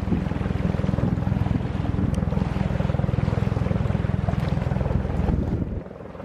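Low-flying helicopter's rotor chopping in a fast, steady beat as it approaches, with wind buffeting the microphone. The sound dips briefly near the end.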